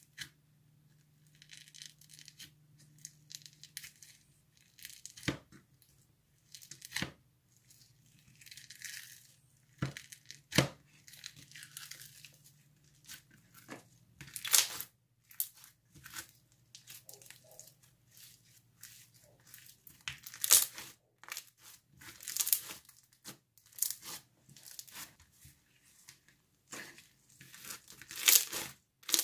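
Hands squishing, poking and stretching a microfoam slime with foam beads in it, giving irregular crackling and crunching with sharp pops now and then.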